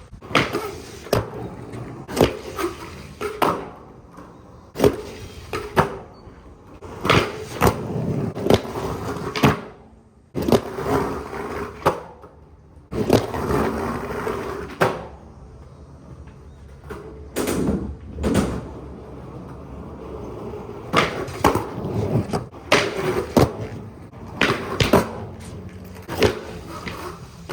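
Skateboard rolling over rough pavement, its hard wheels giving a steady grinding rumble broken by frequent sharp clacks and knocks.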